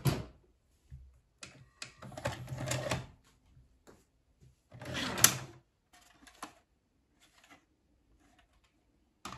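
The cassette mechanism of an Akai VS-G205EDG VCR ejecting a VHS tape, heard from the open deck. A click, then two bursts of motor whirring and gear clatter a few seconds apart, followed by lighter clicks.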